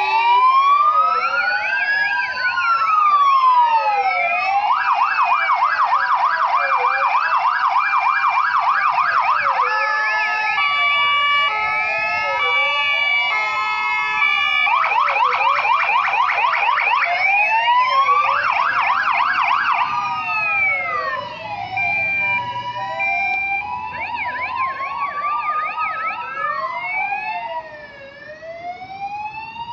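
Several fire engines' sirens sounding together: overlapping slow wails, with stretches of fast yelping sweeps and short alternating two-tone notes. The sound eases off somewhat near the end.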